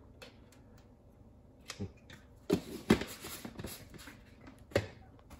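A plastic scoop, a powder jar and stainless steel cat bowls being handled on a stone counter: a few light, separate knocks and clinks, one about two seconds in, two more soon after, and one near the end.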